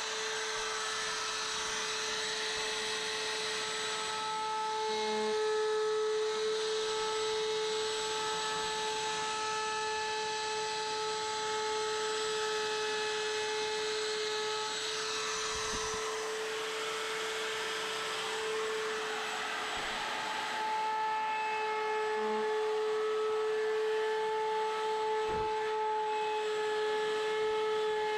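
Electric wood router running at full speed with a steady high whine, its bit cutting along the edge of a wooden window ledge, the cutting noise swelling and easing as it is pushed along.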